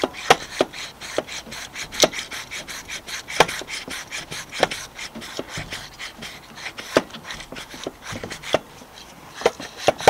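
Hand pump of a brake pressure-bleed kit being worked to pressurise the brake system to just over 1 bar: an irregular string of short sharp clicks and creaks, about one or two a second.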